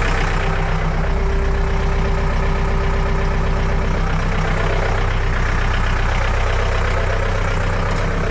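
John Deere 4520 compact tractor's diesel engine running steadily, with a steady whine from the hydraulics between about one and four seconds in as the hydraulic top link is worked.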